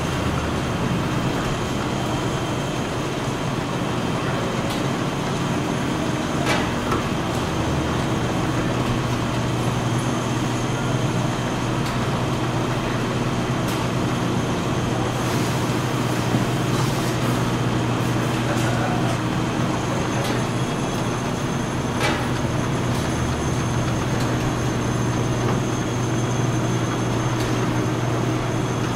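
Automated bottle-filling and conveyor line running steadily: a continuous machine hum and rattle, with a couple of sharp clicks.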